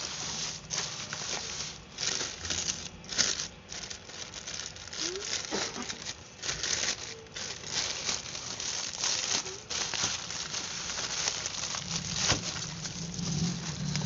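Plastic courier pouch crinkling and rustling as it is torn open by hand, an irregular run of scrunches and crackles.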